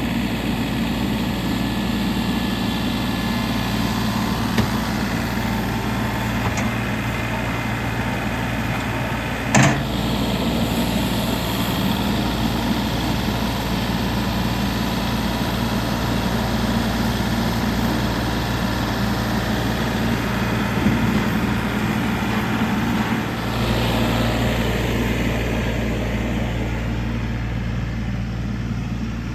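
Tractor engine running steadily, with a sharp knock about ten seconds in and a brief dip in the engine sound a little before the end.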